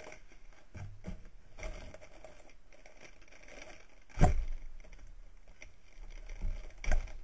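Clear plastic bag crinkling and rustling as it is handled with a mask inside, with a sharp knock about four seconds in and another shortly before the end.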